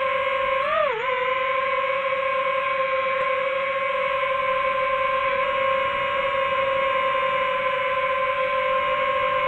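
Multirotor drone's motors and propellers whining at a steady pitch in flight, with a brief swoop up and down in pitch just under a second in as the throttle changes.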